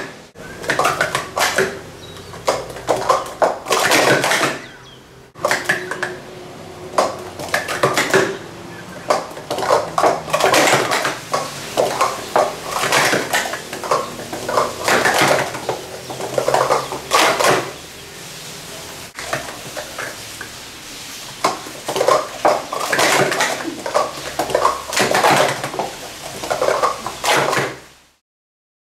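Plastic sport-stacking cups clicking and clattering as they are rapidly stacked up into pyramids and swept back down on a mat. The clatter comes in runs of several seconds with short pauses between attempts, and it cuts to silence near the end.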